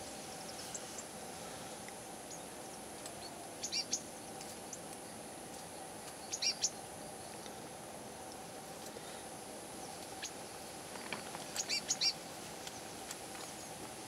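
Short high bird chirps: a pair about four seconds in, another pair a little after six seconds, and a quick run of several near twelve seconds, over a faint steady hum.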